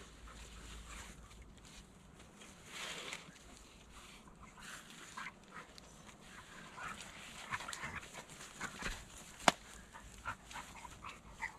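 A dog stirring close by: small dog sounds mixed with short rustles and crackles of feet on dry leaves and earth, and one sharp snap, the loudest sound, about nine and a half seconds in.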